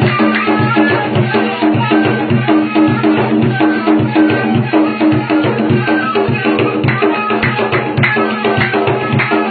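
Folk music: a gasba reed flute holding a melody over a steady, fast drum rhythm.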